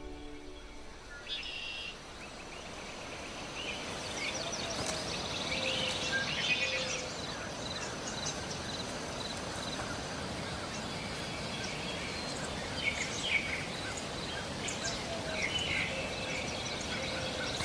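Several birds singing and chirping over a steady open-air background hiss, the calls short, repeated and overlapping.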